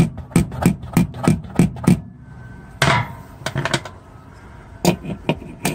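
Small hammer tapping brads flush into a wall: a quick, even run of light taps, about three a second, then a short pause and a few scattered taps to finish setting the brads.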